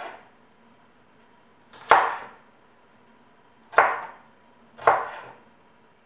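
Chef's knife cutting through onion into thin julienne strips, the blade knocking three times on a wooden cutting board.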